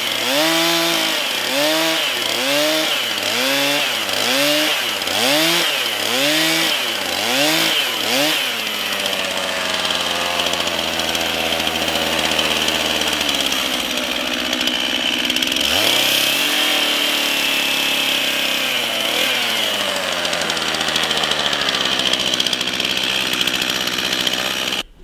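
Two-stroke Stihl chainsaw cutting a notch into a log, the engine rising and falling in pitch about once every three-quarters of a second for the first eight seconds, then running steadily off the cut, with one short rise in pitch a little past the middle.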